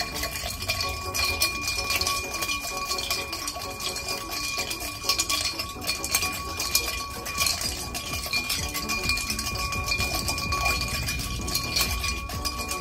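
Bar spoon stirring ice cubes in a mixing glass: a continuous quick clinking and rattling of ice against glass and spoon.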